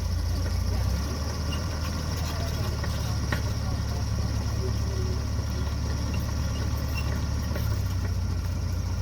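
Dresser bulldozer's diesel engine running steadily while grading, its low note shifting slightly about a second in.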